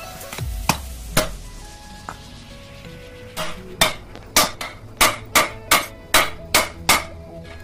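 Hammer blows on a steel drift, knocking the bearing cup of a new universal-joint cross into the yoke of a Mahindra Bolero propeller shaft. Two single strikes come first, then a steady run of about nine blows at roughly two a second.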